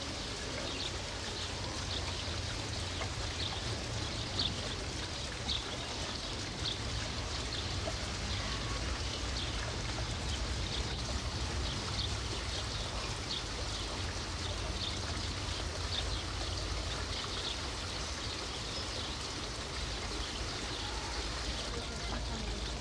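Steady rushing, water-like ambient noise with a low rumble underneath, dotted throughout with brief high chirps or ticks.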